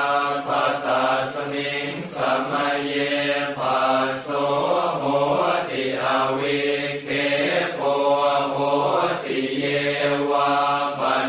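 Thai Buddhist funeral chant: voices chanting on a nearly unchanging pitch, in long phrases broken by short pauses every two or three seconds.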